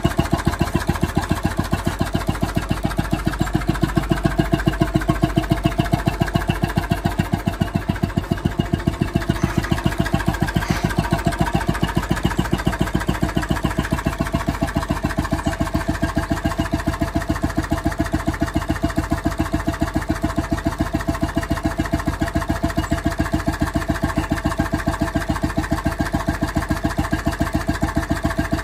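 5 hp Petter crude oil engine running steadily on a long run, its firing strokes giving an even, regular beat.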